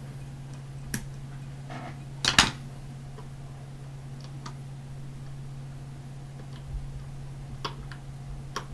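Small scissors snipping off the excess marabou at the fly's tie-in: a light snip about a second in, and a louder double snip about two and a half seconds in. A few faint handling ticks follow, over a steady low hum.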